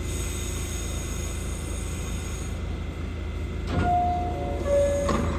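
Stopped New York City subway train humming at the platform, then a click and its two-tone door chime, a held higher note followed by a lower one, about four seconds in, signalling that the doors are about to close; a clatter of the doors starting to shut follows near the end.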